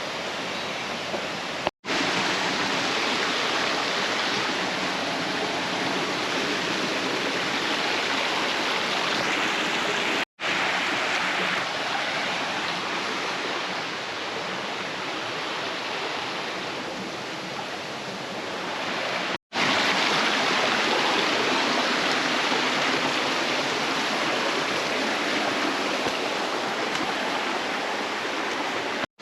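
Flowing stream water rushing steadily, broken three times by a brief moment of silence.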